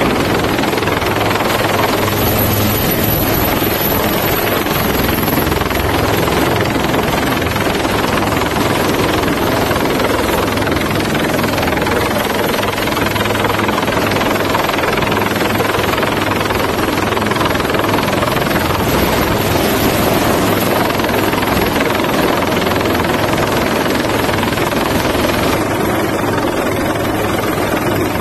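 HAL Dhruv twin-engine helicopter hovering close overhead, a loud, steady rotor and turbine noise that holds without letup.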